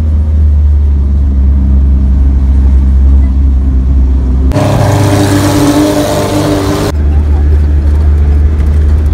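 Steady low drone of a car's engine and road noise heard inside the moving car's cabin. A little under halfway through it gives way for about two and a half seconds to a hissing noise with a steady hum in it, then the low drone returns.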